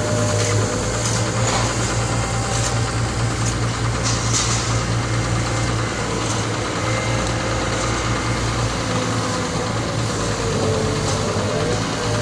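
Excavator's engine idling steadily with a low even hum, and a few light clicks on top.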